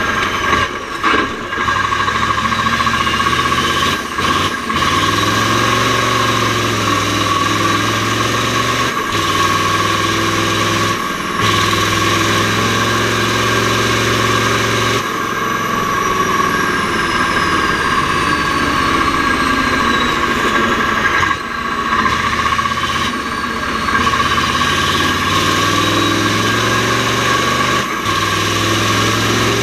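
Mack R series V8 diesel race truck engine running hard under load, with a steady high-pitched whine over it. Every few seconds the engine note breaks off briefly and picks up again as the Roadranger gearbox is shifted.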